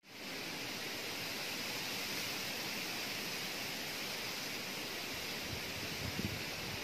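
Steady outdoor hiss that fades in at the start and holds evenly, with a few soft low thumps near the end.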